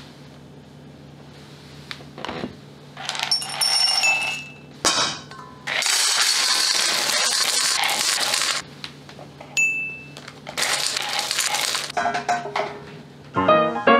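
Dry dog kibble poured from a plastic measuring cup into a stainless steel bowl and a smaller bowl, the pellets rattling and clinking against the metal. There are short clatters first, then two long pours, with a brief metallic ring between them and a few clinks at the end.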